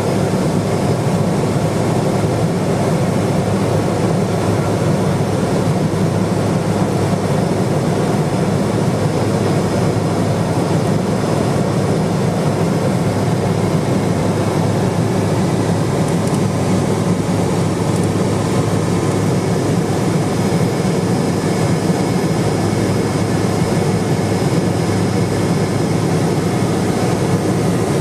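Steady cabin drone of a Cessna 210 Silver Eagle's single turboprop engine and propeller in flight, heard from inside the cockpit: a loud, unchanging low hum with fainter steady whining tones above it.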